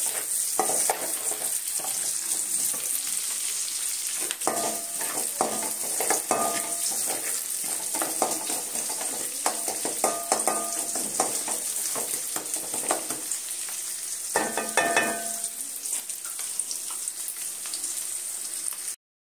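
Chopped small onions sizzling in sesame oil in a metal pan while they sauté, with a wooden spatula stirring and scraping against the pan in several spells.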